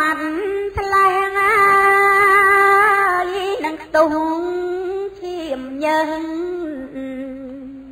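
A woman's solo voice chanting Khmer smot, Buddhist chanted verse: long held notes with small ornamental wavers, stepping down in pitch in the second half and fading near the end.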